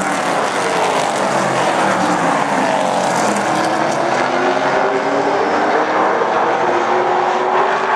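Several super stock race cars' engines running at racing speed, overlapping, with their pitch falling and rising as the cars pass and go through the turns.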